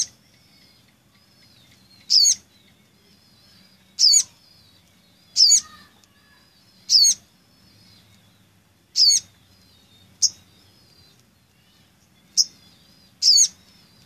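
Little spiderhunter (sogok ontong) calling: about nine sharp, high-pitched calls, one every one to two seconds, with faint twittering between them.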